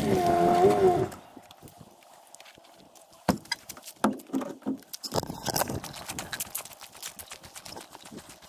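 A motor's wavering pitched hum that stops about a second in, followed by scattered light clicks and knocks of a plastic water bottle being handled.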